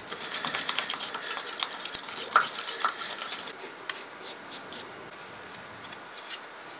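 A wooden stick stirring wood filler in a small plastic pot, with rapid clicks and scrapes against the pot's sides. After about three and a half seconds this gives way to fainter, occasional scrapes as the filler is spread into a crack in a wooden chair rocker.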